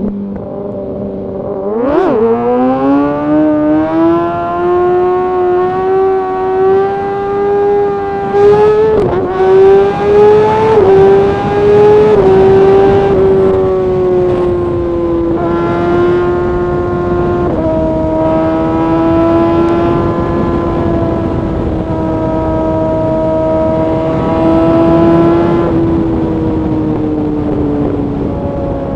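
Kawasaki ZX6R inline-four sportbike engine and exhaust under way: it revs up hard about two seconds in and climbs in pitch, then takes a couple of quick upshifts. It settles into a steady cruise and eases off near the end.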